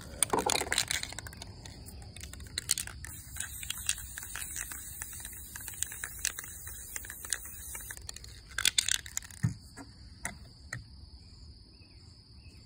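Aerosol spray-paint can hissing steadily for about five seconds as paint is sprayed, after a clicking rattle at the start from the can being shaken. A few knocks and clicks follow, over a steady high insect trill.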